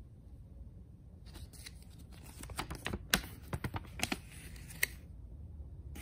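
A folded paper instruction manual being unfolded and handled, with irregular crisp rustles and sharp crackles of the paper starting a little over a second in. The loudest crack comes about halfway through.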